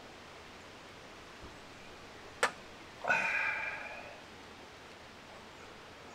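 A crow caws once, a harsh call lasting about a second, just after a single sharp click; a faint steady outdoor hiss underneath.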